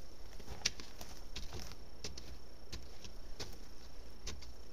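A hole being dug by hand in dry, gravelly dirt: irregular scrapes and clicks of grit and small stones, about three a second.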